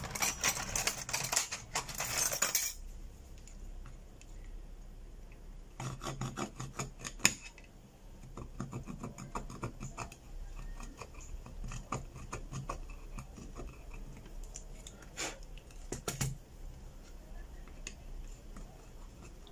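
Metal pick scraping old adhesive residue off the edge of a Realme C3 phone's metal mid-frame, cleaning the channel so the new LCD will seat. A dense run of scratchy scraping for the first two to three seconds, then short intermittent scrapes and small ticks.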